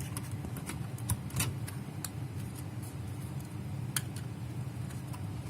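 Scattered small plastic clicks and rattles, with two sharper clicks, as a hard drive in its blue plastic caddy is handled and slid back into a desktop PC's drive bay, over a steady low hum.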